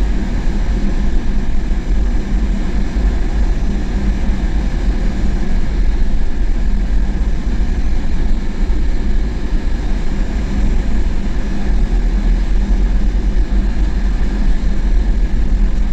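Steady low rumble of a vehicle's engine and cabin noise, heard from inside as it creeps slowly forward in a queue, with a faint steady hum over the rumble.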